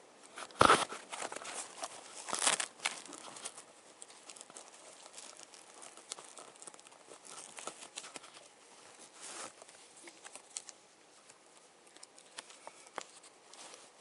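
Rustling and crinkling handling noise close to a body-worn camera's microphone, loudest in two short bursts about half a second and two and a half seconds in, then fainter scattered rustles and light clicks.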